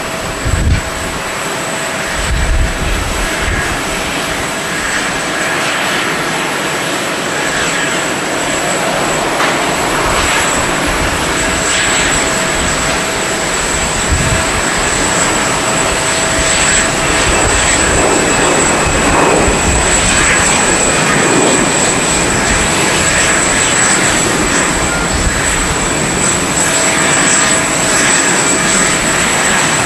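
Twin jet engines of an Airbus A320-200 airliner at takeoff power, a steady roar of the takeoff roll, lift-off and climb-out that grows gradually louder over the first half and then holds.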